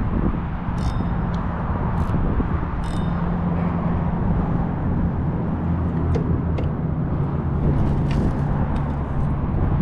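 Steady traffic noise from vehicles on the bridge road, a dense rumble with a low hum, with a few short high ticks scattered through it.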